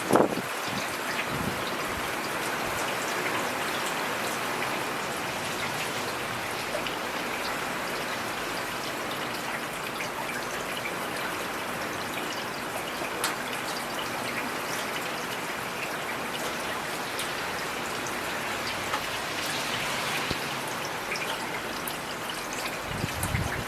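Heavy rain falling steadily: a dense, even hiss with scattered sharper drop impacts. A brief low rumble comes at the very start and again near the end.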